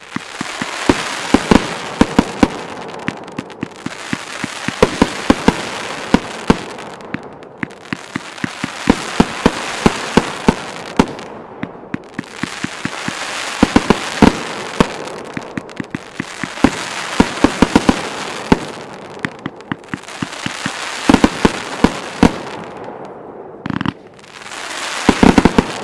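A 49-shot firework cake firing: sharp pops and dense crackling from its gold crackling-tail comets, coming in about seven waves a few seconds long with short gaps between them.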